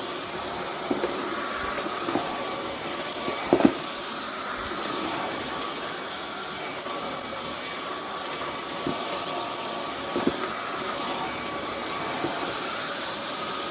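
Buture cordless stick vacuum running steadily at the highest of its five suction settings, a continuous rushing hiss, with a few sharp clicks as pieces of spilled cereal are sucked up.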